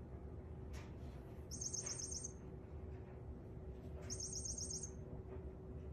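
A grey plush toy mouse, pawed by a cat, giving two short bursts of rapid, high-pitched electronic chirping about two and a half seconds apart.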